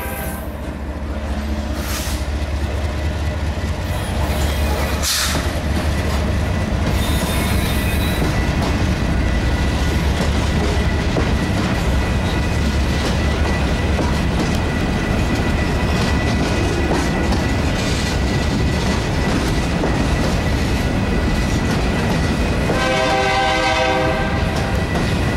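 Freight train of covered hopper cars rolling past close by: a steady low rumble and clatter of wheels on rail, with a thin high steady tone over it and a few sharp clanks in the first several seconds. Near the end a train horn blows a chord of several notes.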